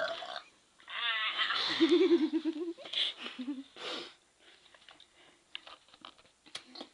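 A girl's long, loud, rough burp about a second in, followed by two short breathy sounds and then faint clicks.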